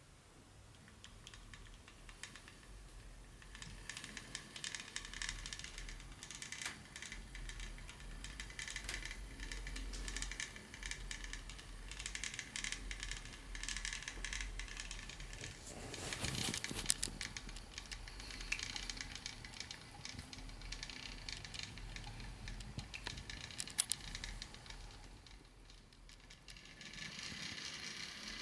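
Dense small clicks and rattles from the Model Power HO-gauge train set's plastic parts and packaging, with a brief louder, fuller rustle about halfway through.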